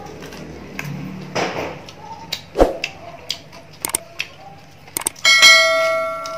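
Crisp lettuce leaves being torn and crunched, with scattered sharp clicks and chewing. About five seconds in, a click is followed by a loud bell-like chime from a subscribe-button animation, ringing and fading over about a second and a half.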